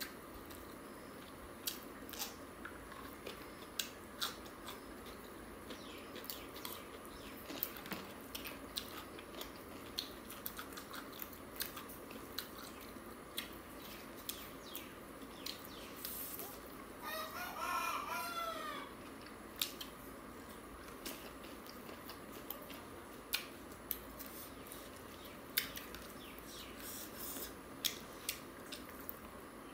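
Close-miked eating noises of people eating rice and chicken curry by hand: frequent small smacks, chews and clicks. About 17 seconds in, a rooster crows once for about two seconds, the loudest sound.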